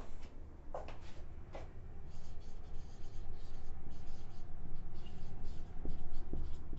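Whiteboard marker writing on a whiteboard: a run of short, scratchy strokes starting about two seconds in, over a steady low hum. Three short thuds come about a second apart before the writing starts.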